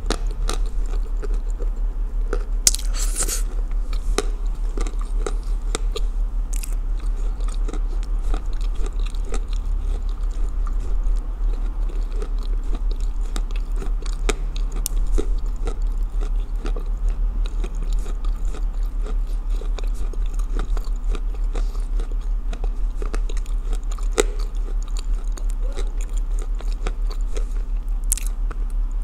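Close-up chewing and biting of edible clay, Ural clay soaked in blue Uzbek clay, cracking and crunching between the teeth in a steady run of small crunches.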